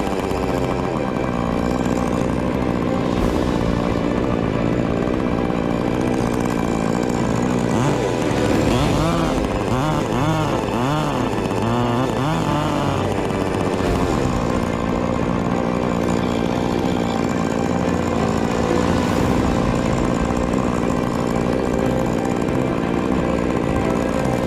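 Chainsaw engine running steadily, its pitch rising and falling through several quick revs in the middle.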